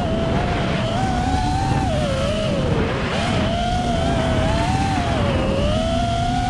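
FPV quadcopter's electric motors and propellers whining, heard from the quad's own onboard camera, the pitch wavering up and down with the throttle over a low rumble of wind and vibration.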